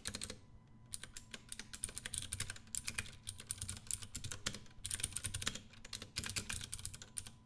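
Computer keyboard typing: quick runs of keystrokes with a brief pause about half a second in.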